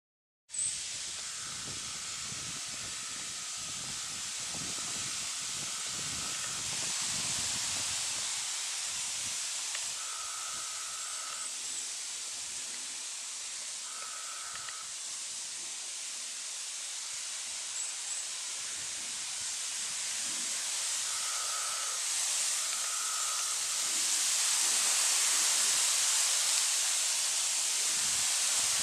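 Steady high hiss of woodland ambience, louder in the last few seconds, with short buzzing notes of one pitch coming and going several times.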